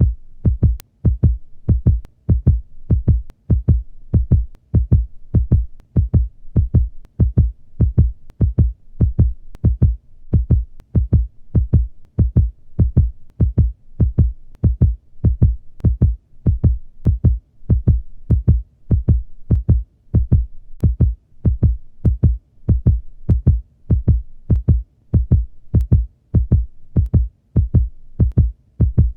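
Heartbeat sound effect: a slow, steady lub-dub, each beat a pair of low thumps.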